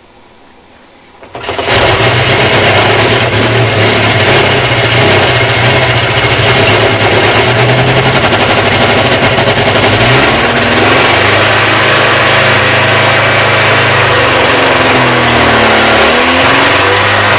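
Rotax 582 two-stroke aircraft engine on a Kitfox catching from a hand-propped cold start in deep-freeze cold about a second and a half in, then running loudly and steadily, its speed dipping and recovering a couple of times.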